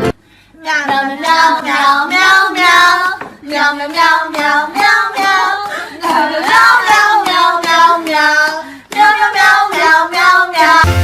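A high voice singing a tune in short phrases. It starts just under a second in and breaks briefly twice.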